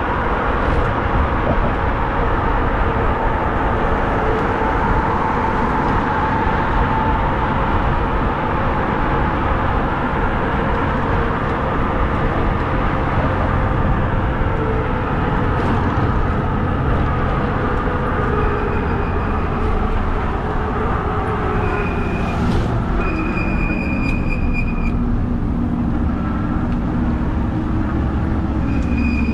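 Steady road and wind noise from riding a modded fat-tire e-bike in traffic, with a faint whine that slowly falls in pitch. A few short high tones sound about two-thirds of the way in.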